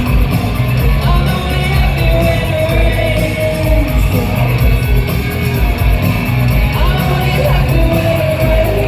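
Live rock band playing loudly with singing, heard from within the crowd in a large, echoing concert hall.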